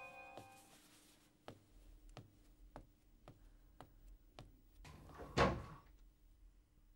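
Footsteps on a hard floor, about two a second, approaching a door, then a louder clunk of the handle and latch as the front door is opened about five seconds in.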